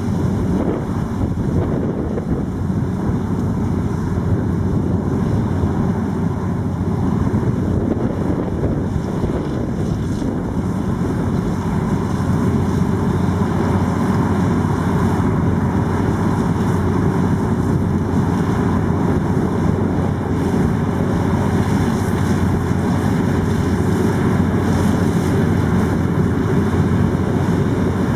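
New Holland CX-880 combine harvester running steadily under load while harvesting maize, with wind buffeting the microphone.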